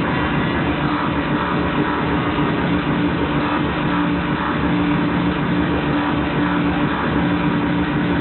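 Live industrial rhythmic-noise music played loud through a PA and heard from the audience: a dense distorted wall of noise over two steady low droning tones.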